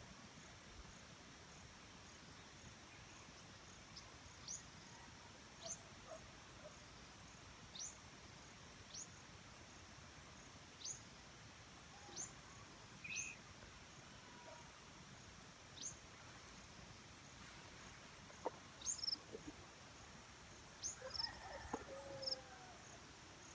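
A bird giving short, sharp, high upward chirps, roughly one a second, several coming close together near the end, over a faint steady insect drone.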